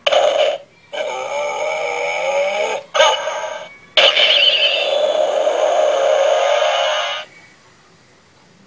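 Electronic sound effects from an Ultraman toy's built-in speaker, played in four separate bursts, the last and longest lasting about three seconds.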